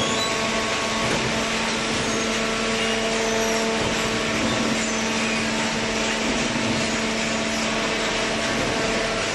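Fully automatic horizontal hydraulic cardboard baler running: a steady machine hum with a constant low drone over an even mechanical noise.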